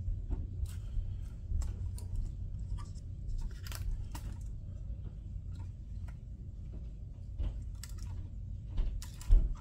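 Clear plastic bag crinkling, with small clicks and knocks as a plastic model locomotive is handled and turned over in the hands. A couple of louder knocks come near the end.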